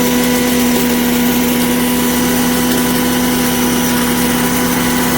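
LSYSGSB electric grain mill running steadily while grinding dry grain, a loud, even motor hum over the noise of the milling.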